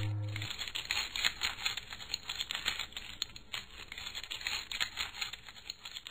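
Cartoon sound effect of small bones clattering in a rapid, irregular run of dry clicks that thins out and fades away; a low note dies away about half a second in.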